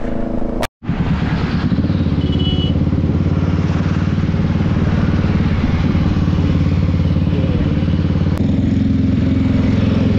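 Kawasaki motorcycle engine running steadily while riding at cruising speed, heard from the bike. The sound drops out for a split second just under a second in, then the even engine note holds.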